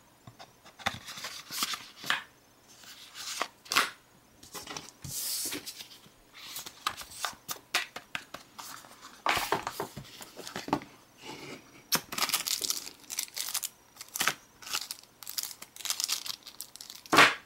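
Plastic packaging crinkling and being torn open by hand, in many irregular short bursts of rustling and crackling.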